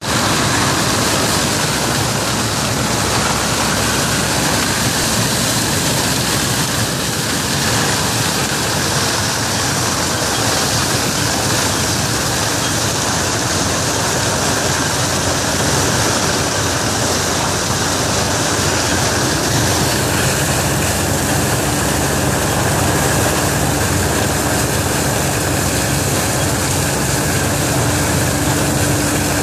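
Grimme Maxtron 620 sugar beet harvester at work: a steady, loud mechanical rush of its engine and its topping and lifting gear tearing through the beet crop. About two-thirds of the way in, a steady hum rises out of the noise.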